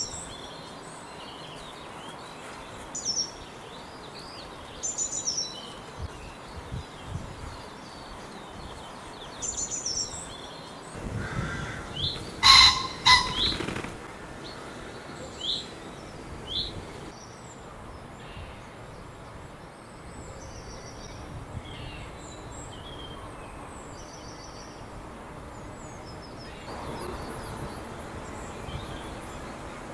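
Male common pheasant's crowing display about halfway through: a loud, harsh two-note crow with a burst of whirring wingbeats. Small songbirds chirp on and off throughout.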